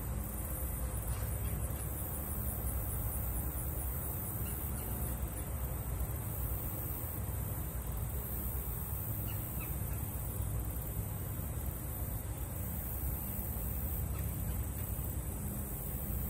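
Steady creekside outdoor ambience, a low rumble under a soft hiss, with a high-pitched insect chirping in a fast, even series of short pulses for about the first five seconds.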